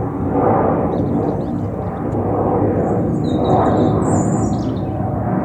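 Twin turbofan engines of a Hawker Beechcraft 400XP business jet running at takeoff power, heard from a distance as a steady rumble that swells and fades slightly. Small birds chirp over it, most in the second half.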